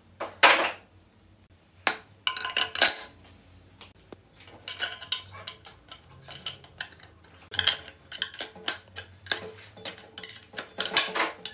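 Steel clutch plates and a screwdriver clinking and scraping against the clutch pack and case of a Buick transmission being taken apart: a loud clink about half a second in, a few more around two to three seconds, then a quick, irregular run of small metallic clicks.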